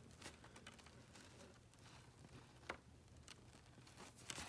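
Near silence, with faint rustles and light ticks as a model railroad grass mat is handled against its clear plastic packaging; one sharper tick comes a little past the middle.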